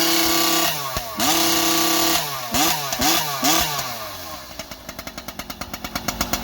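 Husqvarna 3120XP two-stroke chainsaw with a tuned racing pipe revved to full throttle twice, climbing fast and holding flat against its rev limiter each time. It is then blipped four times in quick succession before dropping back to a steady idle.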